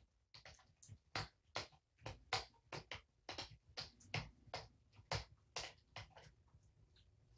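Kittens eating wet food from dishes: a quick run of small chewing and smacking clicks, two or three a second, which stops about six seconds in.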